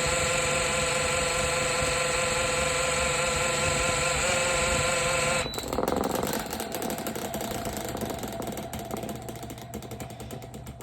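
Electric fan running on a low speed with a loud, steady buzz, which the owner takes as the sign of the backwards-mounted blade rubbing on the motor shaft with its spinner nut off. About five seconds in the buzz cuts off suddenly, leaving a fainter rattling whir that dies away.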